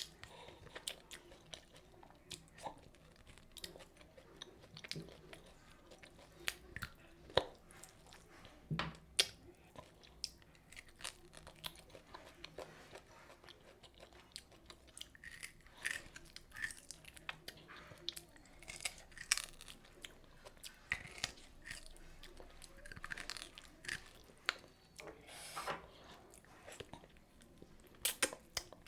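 A person chewing and biting food close to the microphone, eating fried methi puri with mutton curry: wet mouth clicks and crunchy bites at irregular moments, several a second at times.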